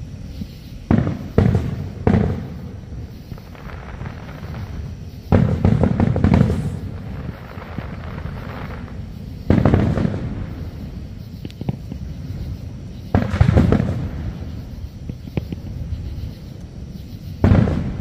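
Aerial fireworks shells bursting in the sky: a sharp boom every three to four seconds, several coming in quick pairs or triples, each trailing off in a rolling echo.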